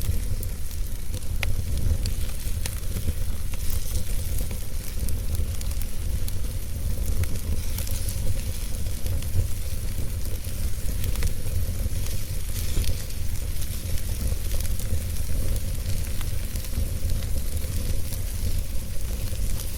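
Wood fire burning: a steady hiss with scattered crackles and pops, over a low rumble.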